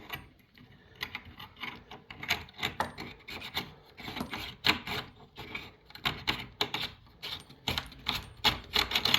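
A tap's brass nut being threaded by hand onto the tap's shank under the worktop: a run of small irregular scrapes and clicks.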